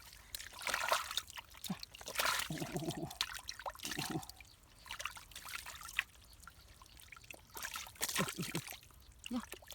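Muddy water splashing and sloshing in irregular bursts as hands dig and grope through the mud for fish.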